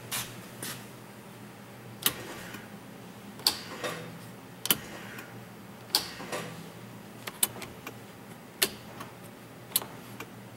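Dash rocker switches being flipped and 12-volt automotive relays clicking, about a dozen sharp clicks at uneven intervals. Short faint whirs follow some clicks: the Toyota FZJ80 electric locker actuator motors locking and unlocking the front and rear axles, with the relays and locker actuators working as designed.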